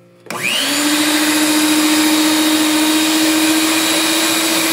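Mondial Prática 400 W stand mixer switching on a moment in: its motor whine rises quickly, then runs steadily as the beaters mix thick cake-donut batter.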